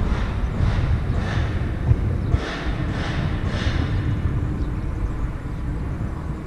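Wind buffeting a helmet-mounted action camera's microphone, a steady low rumble, with several soft swishes in the first four seconds.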